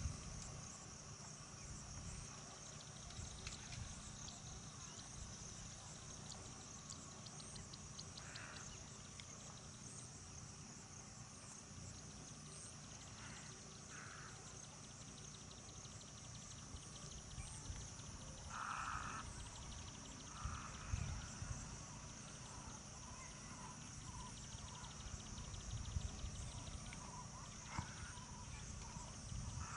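Faint outdoor insect chorus: a steady, high-pitched trill on one note, with a fast ticking joining in for several seconds near the middle. A few short, faint calls and low rumbles come and go.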